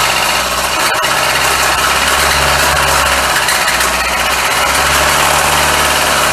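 Hyundai Sonata's Theta II four-cylinder engine running at idle with a loud, fast, steady knock, the sign of a failed connecting-rod bearing.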